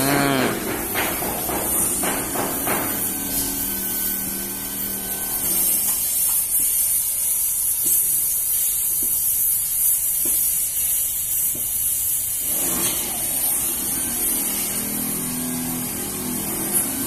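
Open workshop yard background: a steady high hiss, a low hum during the first five seconds or so and again near the end, and a few faint distant knocks in the middle.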